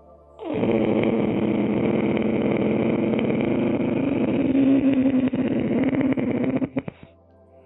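Ujjayi pranayama breath: one long, rasping inhalation drawn through a constricted throat, lasting about six and a half seconds and stuttering to a stop near the end.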